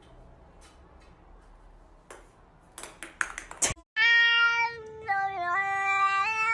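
A few sharp knocks or clicks, then a domestic cat meowing loudly in one long, drawn-out call from about four seconds in, its pitch held level and dipping and rising in small steps.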